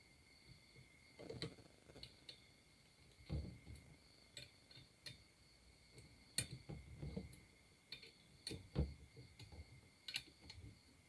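Faint, irregular clicks and light taps of metal parts being handled as the lock bolt on an angle-grinder chainsaw adapter is tightened, with the bar and chain shifting.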